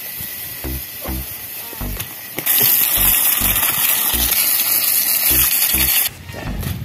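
Water from a garden hose spraying onto a bare metal pitbike frame. The hiss grows louder about two and a half seconds in and cuts off near the end, over background music with a steady kick-drum beat.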